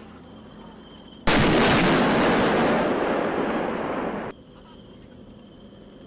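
Tank main guns firing: two heavy blasts about a third of a second apart, a little over a second in, followed by a loud rolling rumble that cuts off suddenly about three seconds later.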